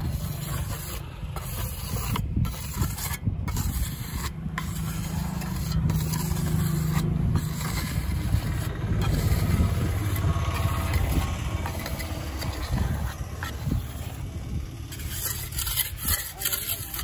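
Mason's trowel scraping and rubbing wet cement along the inside of a freshly cast concrete ring, over a steady low rumble.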